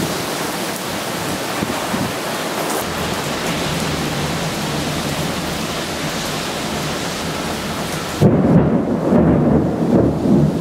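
Heavy rain pouring down in a thunderstorm as a steady hiss. About eight seconds in, the hiss gives way abruptly to a louder, uneven low rumble.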